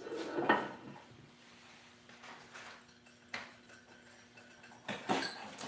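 Handling noises from cylinder-head disassembly: a clatter of tools and metal parts at the start, a single sharp click a little past three seconds, and another brief clatter near the end, over a faint steady hum.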